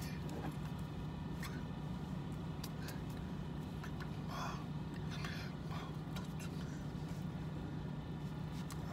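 Steady low hum inside a vehicle cab, with a few short, soft rustles, clicks and mouth sounds over it.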